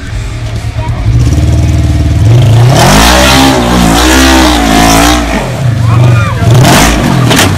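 Side-by-side UTV engine revving hard while climbing a steep rock face. Its pitch rises and falls several times over about three seconds, then drops away.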